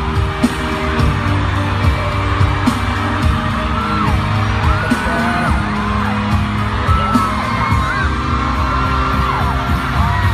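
Loud pop music with a heavy beat and sharp hits, with whoops and yells over it from about four seconds in.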